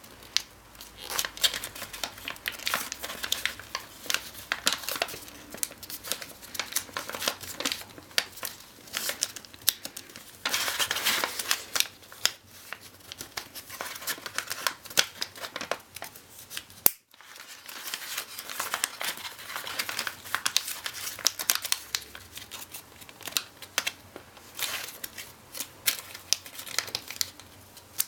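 Origami paper being folded and its creases pressed flat by hand: irregular crinkling and crisp crackles of the paper, with a longer, denser stretch of rustling about ten seconds in.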